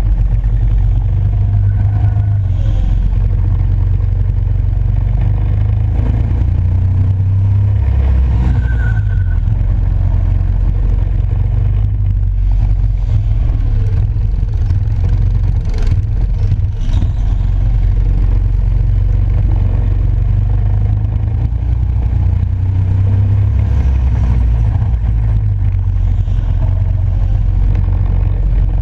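Go-kart running at speed around the track, heard from a camera mounted on the kart: a loud, steady, heavy low rumble with motor noise on top.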